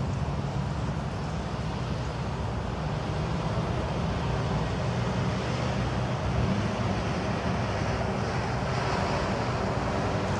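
Steady road traffic noise from cars passing on a busy multi-lane road.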